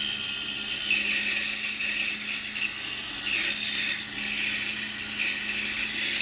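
Pegas scroll saw running, its fine blade cutting into a thick wooden block: a steady high rasp of the blade in the wood over a constant low motor hum.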